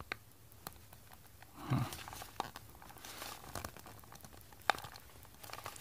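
Plastic packaging being handled: faint rustles and scattered small clicks, one sharper click near the end, and a brief low murmur about two seconds in.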